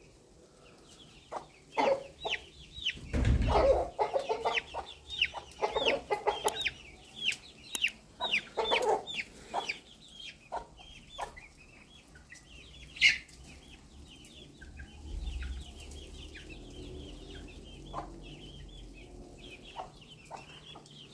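Backyard hens clucking with chicks peeping in short, high, falling chirps, busiest in the first half. A single sharp click about two-thirds of the way through is the loudest sound.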